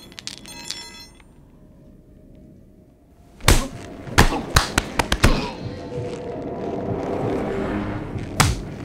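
Butcher's cleaver chopping meat on a block: a quick run of about six sharp chops a few seconds in, then one more near the end, over background music.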